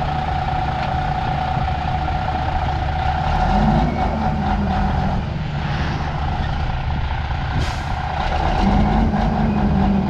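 Cabover semi tractor's diesel engine running, its note rising briefly twice as it is given throttle, with a steady whine over it. A short hiss of air comes about three-quarters of the way through.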